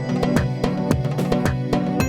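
Background music: plucked guitar-like instrumental with a steady beat.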